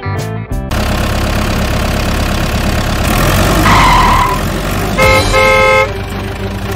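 Rumbling motor-vehicle engine sound with a car horn honking twice, short then longer, about five seconds in. A brief higher tone sounds about four seconds in.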